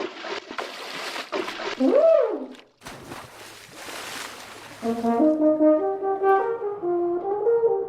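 Rushing, hissing noise with one swooping tone that rises and falls about two seconds in. Then, from about five seconds in, a French horn plays a slow melody like the whale's song.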